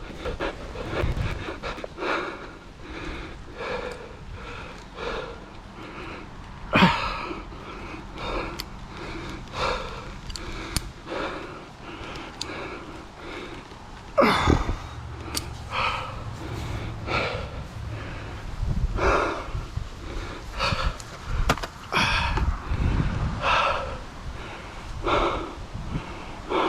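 Heavy, irregular breathing: short noisy breaths, one every half second to a second.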